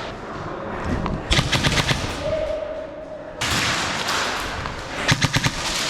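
Airsoft guns firing full-auto bursts, rapid sharp clicks at about ten shots a second, in two bursts: one a little over a second in and another near the end.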